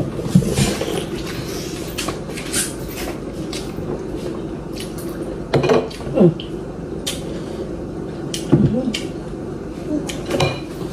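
Scattered clicks and knocks of cupboard doors and dishes being handled in a kitchen, with short creaking sweeps about halfway through, over a steady hum.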